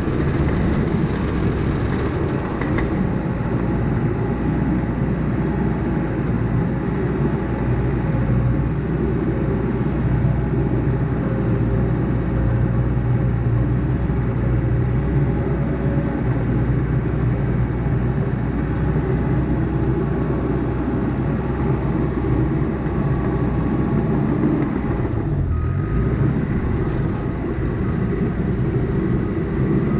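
CAT D5K bulldozer's diesel engine running steadily while the dozer works, with a brief dip in level about 25 seconds in.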